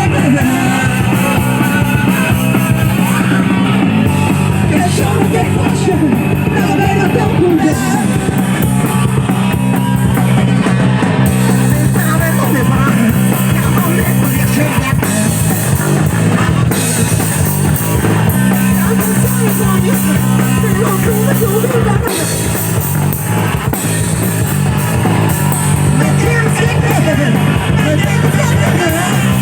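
Loud punk rock song played by a full band with a drum kit, with singing over it.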